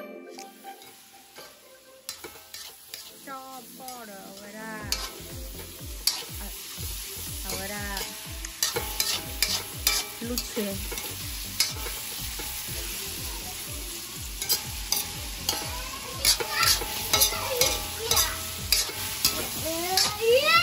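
Fish balls and onions stir-frying in a wok: a steady sizzle with a metal spatula scraping and clacking against the pan. It starts quietly, and the strikes grow louder and more frequent over the second half.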